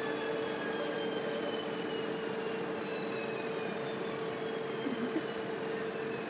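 Steady machine hum with a constant tone, under fainter high whines that slowly fall in pitch.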